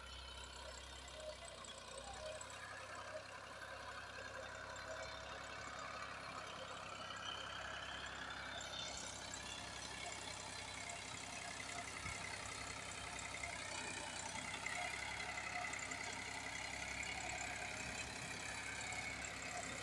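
Massey Ferguson 260 tractor's diesel engine running steadily under load as it pulls a potato planter through damp soil, slowly growing louder as it comes closer.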